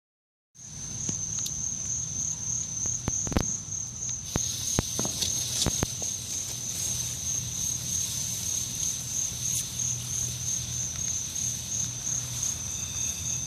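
Crickets chirping in a steady, fast pulsing high trill, with a few sharp knocks about three to six seconds in and a high hiss joining about four seconds in.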